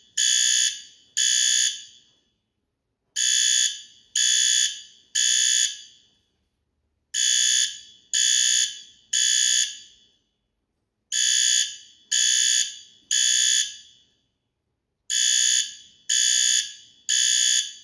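Fire alarm sounding the temporal-three evacuation pattern: three short, shrill blasts, then a pause, repeating about every four seconds, each blast trailing off in an echo.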